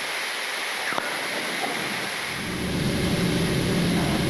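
Steady rush of air and engine noise in a Boeing 777 cockpit during the descent, with the engines at idle. About two and a half seconds in it turns to a louder, deeper rumble.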